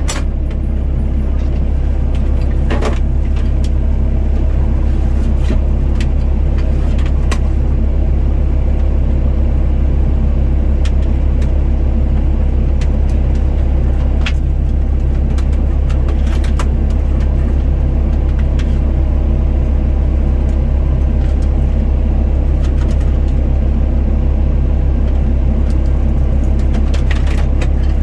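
Doosan DX55 mini excavator's diesel engine running steadily under work, a constant low drone with a steady hum above it and a few faint clicks.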